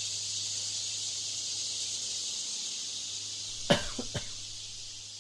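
Steady hiss with a low hum underneath, the noise laid over an exam listening recording to imitate a poor broadcast system. About three and a half seconds in, a person coughs, once sharply and then twice more lightly.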